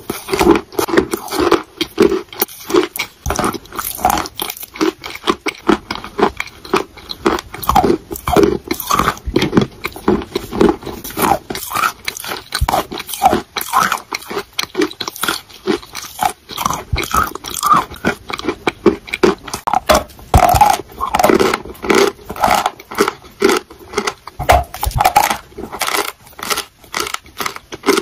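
Chalk being bitten and chewed close to the microphone: a dense, irregular run of crisp crunches as pieces are bitten off and ground between the teeth.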